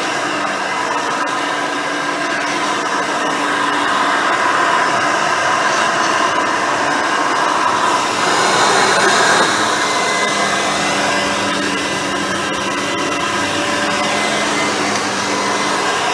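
Custom Hoover Elite 350 upright vacuum cleaner running steadily with an older-style Cleveland Wood Products brush roll, its motor whirring; the sound grows somewhat louder through the middle.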